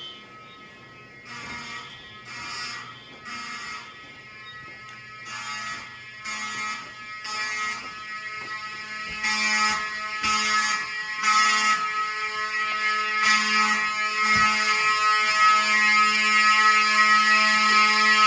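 Fire alarm horns, most of them Wheelock 34Ts, sounding a buzzy tone that pulses on and off and then holds a steady continuous tone from about fourteen seconds in, growing louder throughout. The continuous sounding is a setting on the Silent Knight 5208 fire alarm panel.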